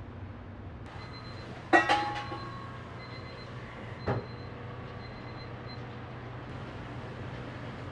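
A sharp metallic clank with a brief ring a little under two seconds in, then a lighter knock about two seconds later, from metal cookware being handled at a bubble-waffle stall, over a steady low hum.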